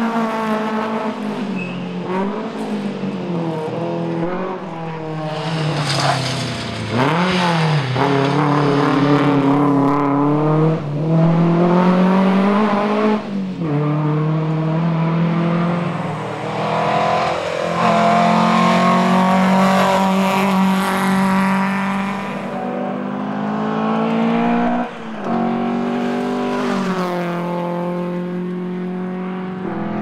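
1961 Volvo 122S rally car's four-cylinder engine being driven hard, its note climbing in pitch and then falling away sharply at each gear change and pass-by, several times over.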